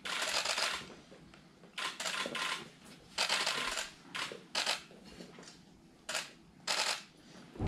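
Camera shutters firing in short rapid bursts, about eight flurries spread across several seconds, the longest right at the start.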